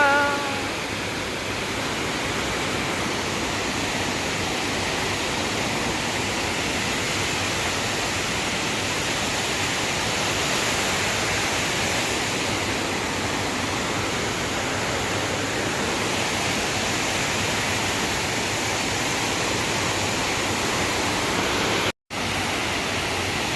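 Waterfall: a steady, dense rush of falling water, unchanging throughout. A short pitched call is heard at the very start, and the sound cuts out for a split second near the end.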